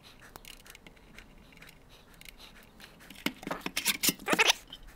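A screwdriver backs out a case screw with faint small ticks. From about three seconds in comes a louder, irregular scraping and clatter as the Beich CH9720CU electronic load's sheet-metal top cover is slid off its chassis.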